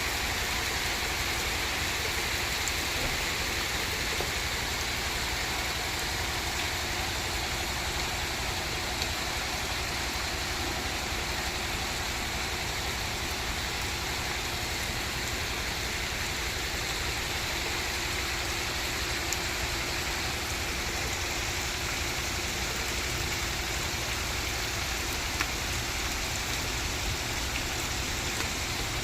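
Rain falling steadily, an even hiss with a few sharp drip clicks.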